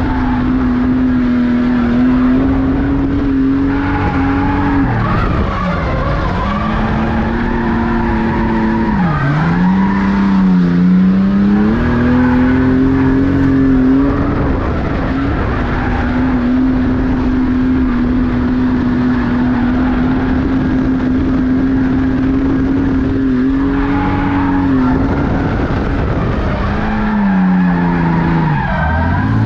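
Ford Falcon drift car in a slide, its engine held at high, steady revs with tyres squealing. The revs drop and climb back twice in the first ten seconds and again near the end.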